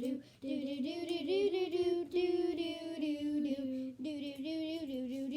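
A young girl singing a wordless "do do do" tune without accompaniment, in long held, wavering notes with a short breath about half a second in.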